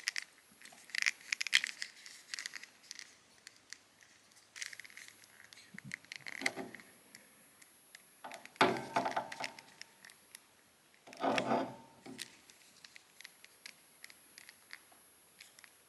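Plastic action figure being handled and posed: scattered small clicks, taps and scrapes of its plastic parts and joints as the limbs are moved, with a few louder handling bursts.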